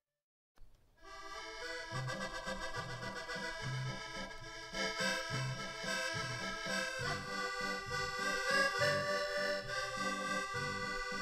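Accordion playing a tune: sustained melody notes over a steady, pulsing bass-and-chord accompaniment. It starts about a second in, after a short silence and a click.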